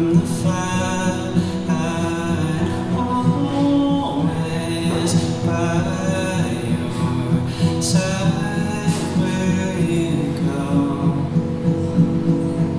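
A man singing with his own acoustic guitar accompaniment, a solo acoustic song.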